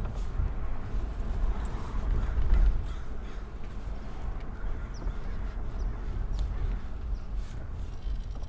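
A dog barking harshly in bursts over a steady low rumble, loudest about two and a half seconds in.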